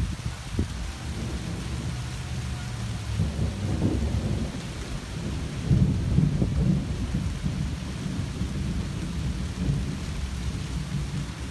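Thunder rumbling low under steady rain falling on leafy trees. The rumble swells a few seconds in and is loudest around the middle.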